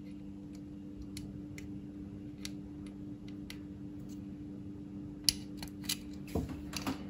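Small plastic clicks and taps from a jumper-wire connector being handled and pushed onto the pin header of an Arduino CNC shield. The clicks are faint at first and sharpest in the last two seconds.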